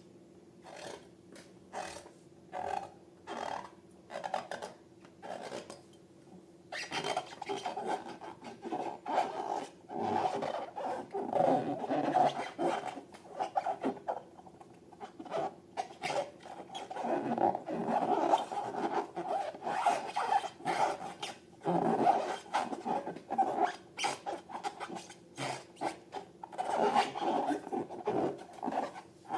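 Irregular squishing and rubbing of slime and rubber balloons being handled: sparse short sounds at first, then dense and nearly continuous from about seven seconds in.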